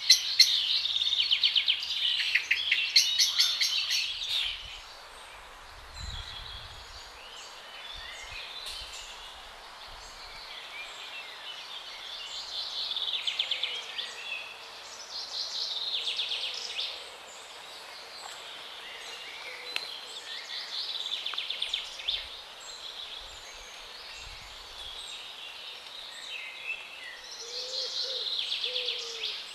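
Songbirds singing over a steady background hiss, with fast trilled phrases loudest in the first few seconds and shorter song phrases returning every few seconds. A lower call starts near the end.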